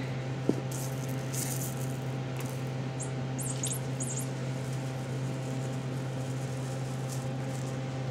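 Faint scratching and pattering of kittens playing with toys on carpet, with a few brief scratchy rustles around three to four seconds in, over a steady low hum.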